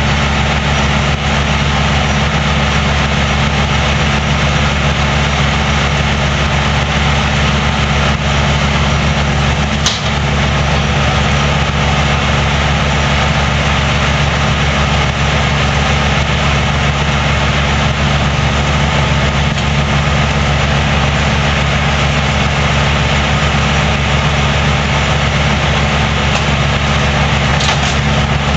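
Heavy engine running steadily at one constant speed, with a single brief click about ten seconds in.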